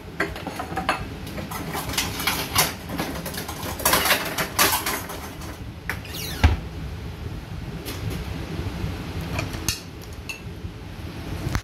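Kitchen clatter: dishes and utensils knocking and clinking as they are handled on a counter, in irregular bunches, with one heavier thump about six and a half seconds in.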